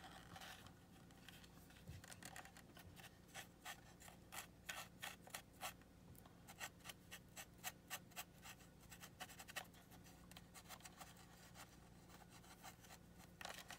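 Faint, irregular scratching and small clicks of a cotton swab scrubbing baking-soda paste over battery-acid corrosion on the metal contacts of a toy remote's plastic battery compartment, over a low steady hum.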